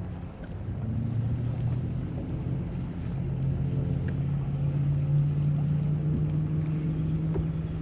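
Boat motor running at low speed, a steady low hum whose pitch steps up about a second in and again about three seconds in, then drops near the end.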